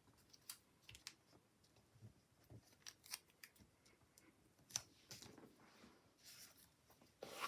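Faint handling of paper and sticker sheets: scattered small clicks, taps and scrapes, with a sharper tick about halfway through and a longer brushing swish near the end.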